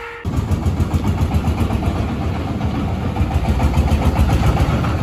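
Engine of a three-wheeled farm truck running with a rough, fast, low-pitched chugging as the truck drives off. It cuts in suddenly just after the start.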